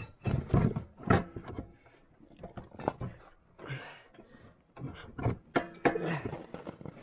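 Irregular clunks, clicks and scraping as a drive belt is worked by hand onto a Buran snowmobile's variator pulleys, the loudest knocks about half a second in, just after one second, and near the end.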